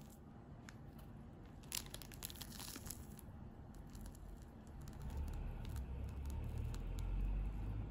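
Thin plastic crinkling and rustling as a candy tray and a plastic piping bag are handled and squeezed, with scattered small crackles, then a low rumble of handling from about five seconds in.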